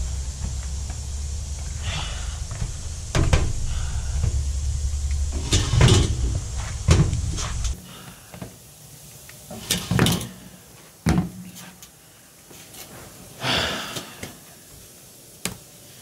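Scattered knocks and clicks of someone moving about over a steady low rumble, which drops away suddenly about halfway through. After that come a few separate clicks and knocks as a laptop lid is opened on a glass table.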